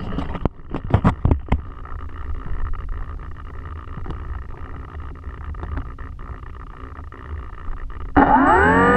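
Several sharp knocks on the camera in the first second and a half, then a steady rushing, whirring noise from the Phantom FX-61 flying wing's electric motor and propeller with wind on the GoPro. Electronic music with sliding, rising tones comes in near the end.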